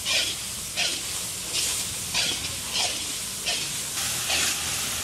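Steady hissing from a large iron kadai heating over a wood fire, with a short, brighter burst about every two-thirds of a second.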